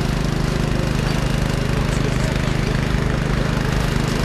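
An engine running steadily at constant speed, an even low mechanical drone.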